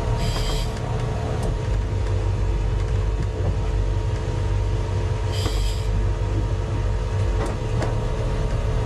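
A sport-fishing boat's engine running at a steady, low pitch, with two brief high-pitched squeals, one near the start and one about five seconds later.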